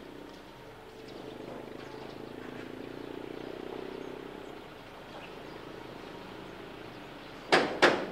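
A low hum swells and fades over the first few seconds. Near the end, hammering starts: sharp, ringing blows about three a second, much louder than the rest, from workers repairing earthquake damage.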